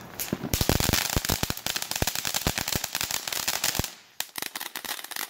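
Ground fountain firework spraying sparks: a hiss packed with rapid sharp pops, which thins to scattered pops a little under four seconds in and then dies away.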